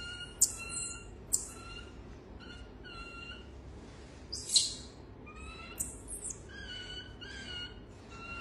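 Marmosets calling: a string of short, high, whistle-like chirps repeated about once a second, with a few sharper, louder squeaks mixed in.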